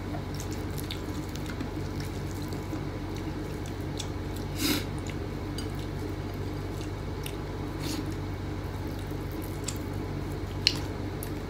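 Quiet eating sounds of a person eating rice and fish with bare hands: soft squishing, chewing and a few small sharp clicks, the clearest about five, eight and ten and a half seconds in, over a steady low hum.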